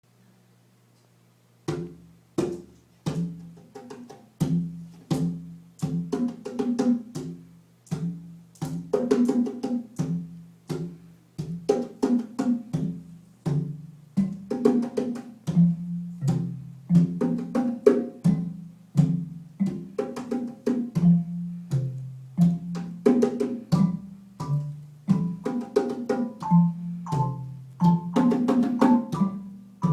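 Drums struck in lively rhythmic patterns, starting about two seconds in, with a lower pitched part that steps between notes under the strikes.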